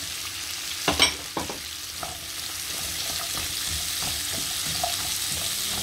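Sliced onion and celery sizzling in oil in a frying pan while being stirred with a wooden spoon, with a couple of short knocks of the spoon about a second in.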